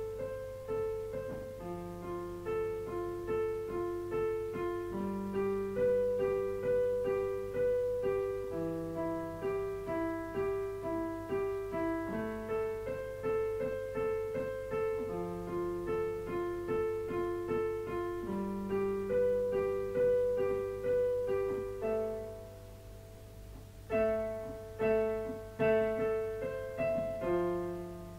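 Solo piano improvisation: a steady run of notes and chords, with a brief lull about three-quarters of the way through before the notes pick up again.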